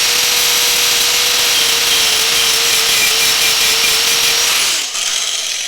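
Angle grinder grinding the tip off a steel go-kart chain pin: a steady motor whine over a harsh grinding hiss. About four and a half seconds in it is switched off and winds down.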